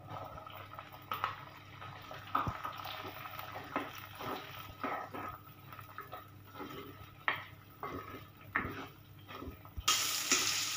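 Sliced shallots sizzling in hot coconut oil in a clay pot, with a wooden-handled spoon stirring and scraping against the pot in irregular clicks. A louder, even hiss comes in near the end.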